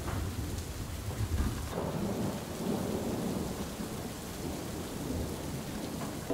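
Thunderstorm: steady rain with low rolling thunder that swells and fades.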